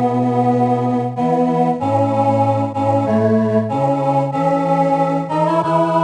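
Organ playing a slow hymn in sustained four-part chords, the harmony changing about once a second.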